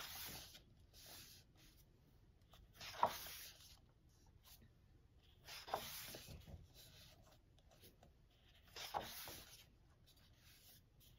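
Paper pages of a photobook being turned by hand: three soft papery swishes about three seconds apart.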